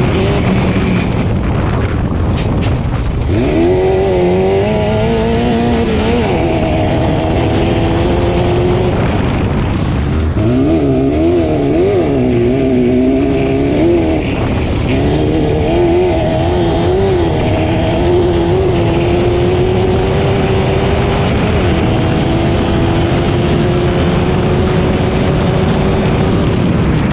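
Racing engine under hard use through a qualifying run, its pitch rising and falling over and over as the throttle opens and closes, over a steady rush of noise.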